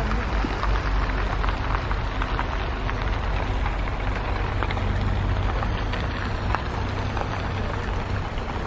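Multi-axle heavy-haul transporter carrying a house, moving slowly over a snowy road: a steady low rumble under a crackling hiss with scattered small clicks.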